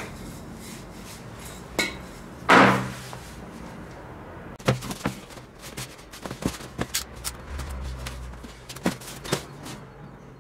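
Handling and workshop noises of an aerosol can and a rubber inner tube on a wooden workbench: one loud knock about two and a half seconds in, then a run of small clicks and knocks.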